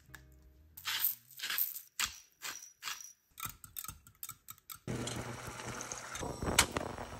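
A wire whisk beating eggs in a glass measuring cup, a run of quick, irregular clinks against the glass. About five seconds in, a steady sizzle starts as the beaten egg is poured into a hot pan.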